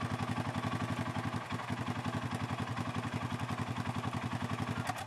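Arctic Cat 700 ATV engine running steadily, its even exhaust pulses unchanging, then cut off abruptly just before five seconds in.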